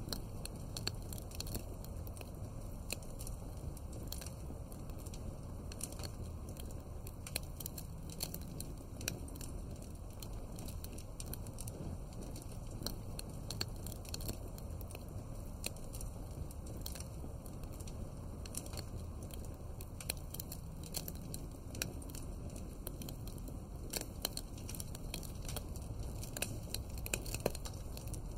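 Wood fire crackling, with frequent sharp pops over a low steady rumble.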